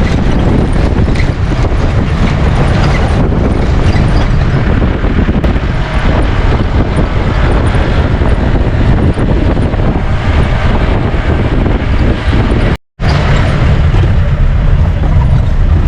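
Jeep on the move: engine running with heavy low rumble and wind buffeting on the microphone. The sound cuts out for a moment about three-quarters of the way through, then resumes.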